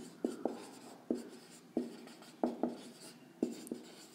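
Marker pen writing on a board: a run of short, separate pen strokes and taps, roughly two or three a second at an uneven pace.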